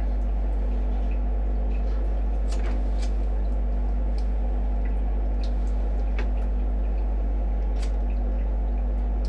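Steady low electrical hum with a few faint clicks scattered through it.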